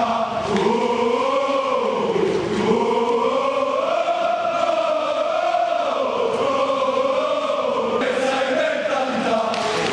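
Large crowd of football ultras chanting in unison as they march. The chant is continuous and rises and falls in pitch in slow waves.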